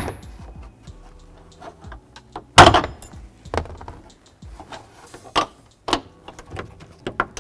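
Plastic retaining clips of a Volvo V70 liftgate's upper interior trim panel snapping loose as the panel is pulled down by hand: a series of sharp clicks and snaps, the loudest about two and a half seconds in, with smaller clicks between.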